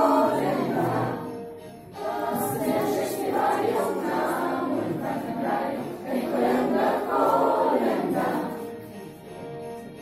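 A group of school children singing a Polish Christmas carol (kolęda) together, in phrases with short breaths between them, over an instrumental backing. The singing stops about eight and a half seconds in, leaving the quieter backing music.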